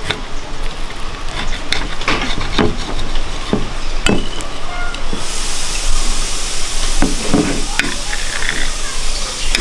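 A knife cutting through a toasted-bread sandwich: crunching of the toasted crust and sharp clicks and scrapes of the blade against the plate. A steady hiss comes in about five seconds in.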